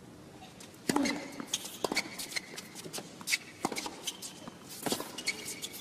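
Tennis rally on a hard court: a serve struck about a second in, then rackets hitting the ball back and forth at uneven intervals, with shoes squeaking and scuffing on the court between shots.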